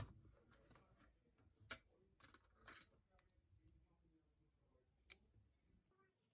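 Metal tin pencil case being handled and opened: a sharp click right at the start, then a few fainter clicks and taps spaced a second or so apart as a pen is taken out of it.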